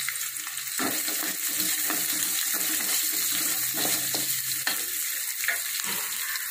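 Chopped onions sizzling in hot oil in a stainless steel kadai, being sautéed with garlic and dried red chillies while a wooden spatula stirs and scrapes them around the pan. The steady frying hiss carries on throughout, with repeated scraping strokes of the spatula from about a second in.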